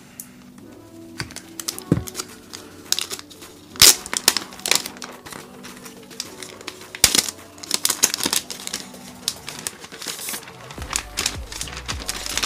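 Thin clear plastic protective film crinkling and crackling in irregular sharp bursts as it is peeled off a laptop and handled, over soft background music.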